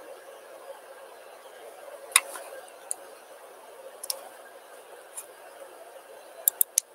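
Scattered sharp clicks of someone working a computer, over a steady low room hum: single clicks spaced about a second apart, the loudest about two seconds in, then a quick run of three near the end.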